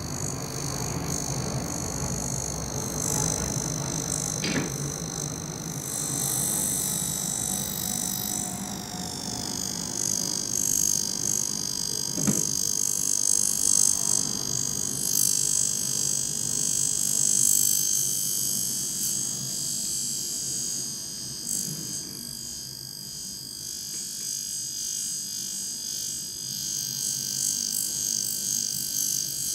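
High-frequency facial machine with a neon-gas glass electrode running on the skin, giving a steady, high-pitched electrical buzz. The pitch steps down slightly about nine seconds in, and there are a couple of brief knocks.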